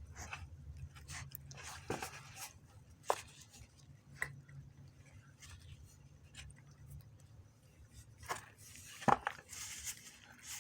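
A cat chewing a snack: scattered small crunches and clicks, a few louder ones about three and nine seconds in.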